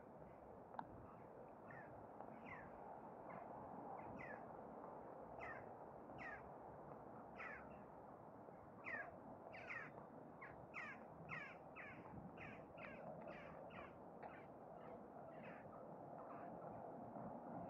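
Crow-family birds calling: many short, falling calls, coming irregularly and thickest about halfway through, over a faint steady background hum.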